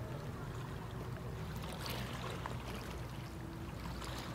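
Lakeshore ambience: a low steady rumble with faint lapping of small waves against the shore.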